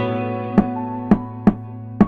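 Background music: plucked guitar-like notes over a steady beat, with a percussive hit about every half second.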